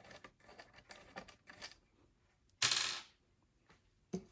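A few light clicks, then about two and a half seconds in one short, bright metallic clatter that rings briefly and fades: a small hard object landing on a hard surface.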